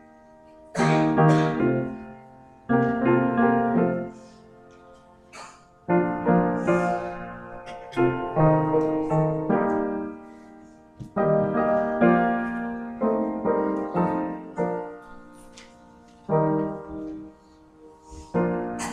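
Piano playing slow offertory music during the collection of the offering, chords struck and left to ring out, with a new phrase about every two seconds.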